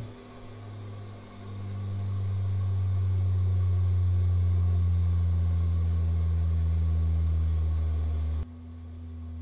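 Deep, steady humming drone with a couple of higher overtones. It swells up loud about a second in, then cuts off abruptly near the end, leaving a fainter low hum.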